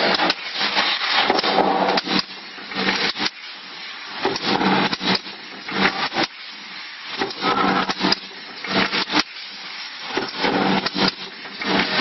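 Vertical form-fill-seal packing machine running its repeating bagging cycle. Noisy, rattling bursts with sharp clicks come every second or two over a steady machine hum.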